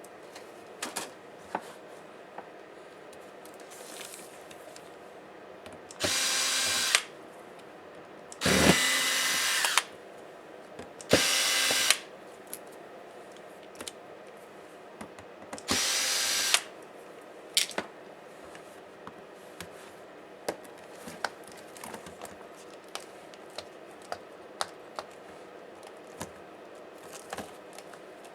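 Small electric screwdriver running in four short bursts of about a second each, driving out laptop screws. Light clicks and taps come in between.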